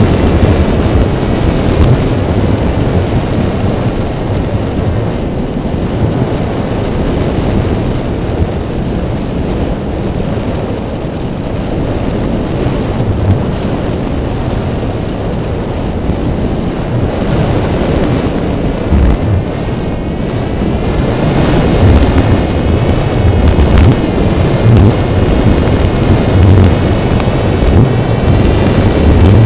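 Wind buffeting a drone camera's microphone, a loud gusty rumble, with a faint wavering whine of the drone's motors showing through in the second half.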